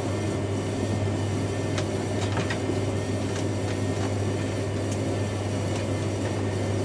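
Domestic washing machine spinning with a steady low hum and faint scattered ticks.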